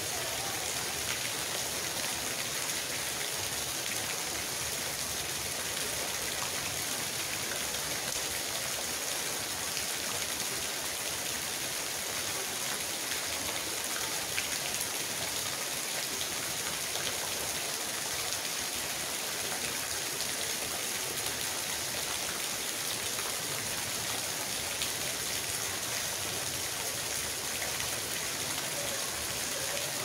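Steady rain falling on wet gravel and into puddles, with a small stream of runoff water pouring down and splashing into a puddle.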